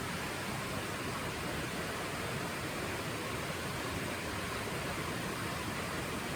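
Steady, even hiss that holds at one level throughout, with no distinct events.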